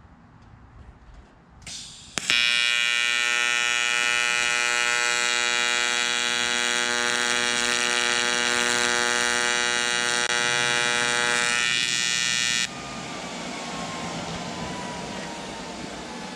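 AC TIG welding arc on aluminum, from a Miller Multimatic 220: a steady, harsh buzz that strikes with a sharp click about two seconds in and cuts off suddenly near the end, laying a tack weld. A quieter steady hiss carries on after the arc stops.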